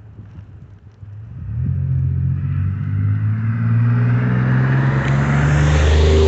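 Car approaching on the road: a steady low engine hum and tyre noise swell in from about a second and a half in and keep getting louder as it draws close.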